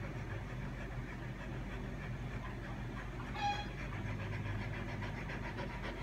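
Samoyed dog panting steadily, with one brief high squeak a little past halfway through.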